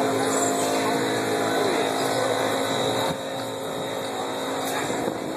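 A steady mechanical hum, a motor drone with steady tones in it, that drops a little in level about three seconds in.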